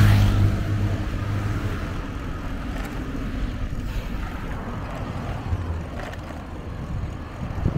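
Road traffic going by: a low rumble, loudest at the start and easing off over the first couple of seconds.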